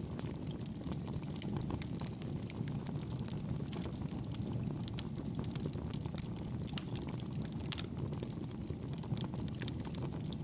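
Wood fire burning in a fireplace: a steady low rush of flame with frequent small, sharp crackles and pops scattered throughout.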